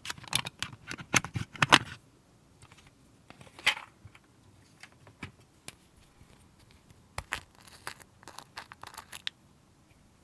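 Slime being worked by hand: bursts of sticky crackling and clicking pops, a dense flurry at first, a short burst midway and another crackly run near the end.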